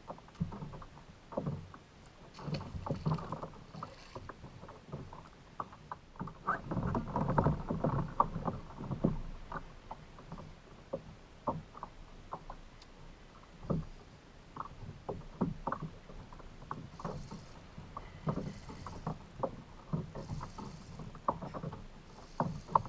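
Water sloshing and slapping against a kayak's hull, with scattered irregular knocks and clicks.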